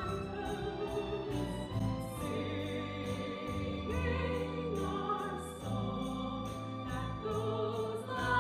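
Musical theatre singing in an operatic style, the voices wavering with vibrato, over a live pit orchestra.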